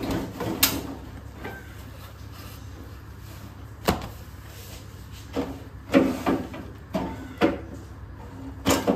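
Hands cleaning a stainless-steel gas stove with a cloth: scattered clicks and knocks as its control knob and body are handled and wiped, with a sharp click about four seconds in and a run of knocks in the last few seconds.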